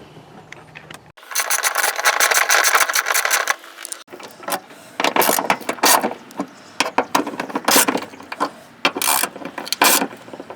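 Hand ratchet clicking as it tightens down T30 Torx screws: a fast unbroken run of clicks for a couple of seconds, then short bursts of clicks as the screws snug down.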